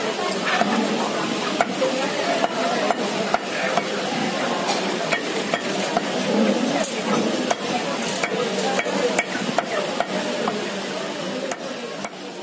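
Cleaver chopping raw chicken on a wooden log chopping block: sharp, irregular chops about twice a second over a steady noisy background.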